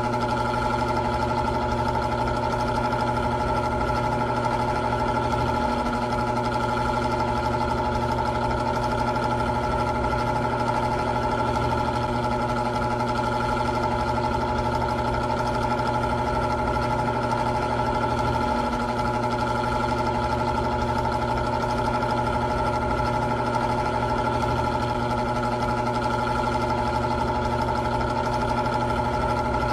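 Old electric fan running steadily: a constant motor hum with several steady tones over a low whir, no change in speed.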